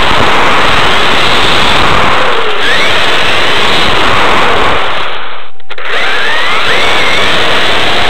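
Onboard sound of a Kyosho Inferno GT RC car with a Novak HV Pro 5.5 brushless motor being driven: a loud, rough rush close to the microphone, with the motor's whine sweeping up and down in pitch several times as the throttle changes. The sound briefly drops out a little past five seconds in.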